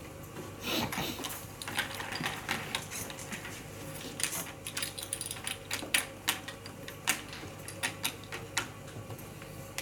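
Quick, irregular clicks and clacks of draughts pieces being picked up and set down on the boards during rapid play, starting about half a second in.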